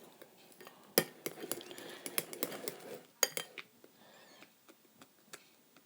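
A spoon clinking and scraping against a bowl while thickening slime is stirred. There are sharp clinks about a second in and again around three seconds, busy stirring between them, and then only a few light taps.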